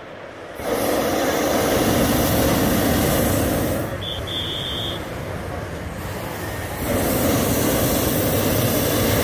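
Hot air balloon propane burner firing in two long blasts, the first starting about half a second in and the second about seven seconds in, with a quieter steady rush between them.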